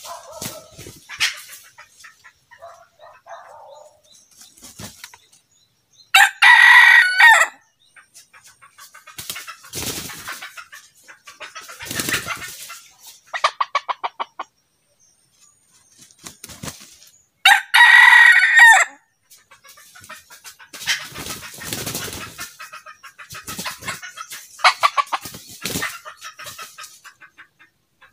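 Red junglefowl rooster crowing twice, each crow short and clipped at about a second and a half, with softer clucking between the crows.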